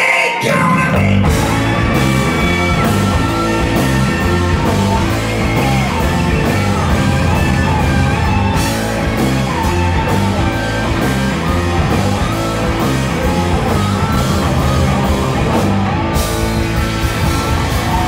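Live rock band playing loud with electric guitars, bass guitar and drums in an instrumental stretch without singing. The full band comes in at once at the start.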